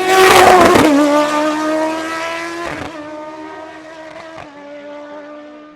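Hillclimb race car passing close at full throttle, loudest about a second in, its engine note dropping in pitch as it goes by. It then pulls away up the hill, shifting up twice as it fades.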